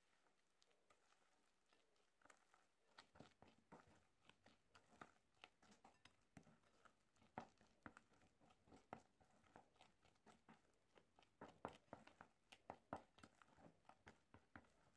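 Faint, irregular scraping and clicking of a spatula against a bowl as ground ladyfinger crumbs are worked into a soft mascarpone mixture. The strokes grow busier about three seconds in.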